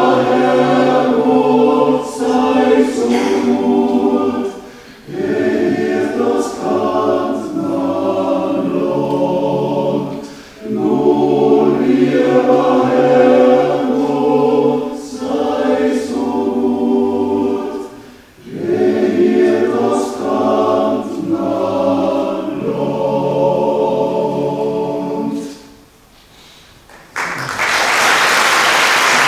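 Men's choir singing a Carinthian song a cappella in several parts, in phrases with short breaks between them. The singing ends about 26 seconds in, and after a brief pause the audience breaks into applause.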